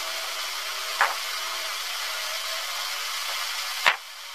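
Steady hiss of a sped-up, fast-forwarded recording, with a short high chirp about a second in and another near the end, where the hiss cuts off abruptly.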